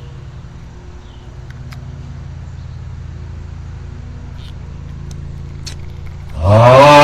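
Steady low motor hum with a few faint clicks. Near the end comes a sudden, very loud cry that rises in pitch and cuts off sharply.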